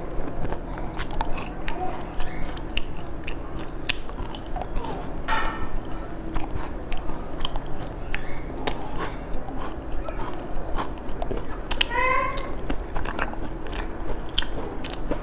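Close-miked biting, crunching and chewing of sesame-crusted pastries: a dense run of crisp, irregular crunches. Two short voice-like pitched sounds come partway through, about five seconds in and again near twelve seconds.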